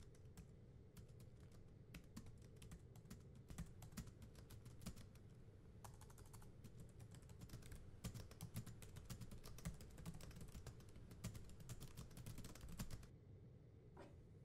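Typing on a laptop keyboard: light key clicks at an irregular pace, in quicker runs through the middle, stopping a little over a second before the end. A short soft sound follows as a mug is lifted from the table.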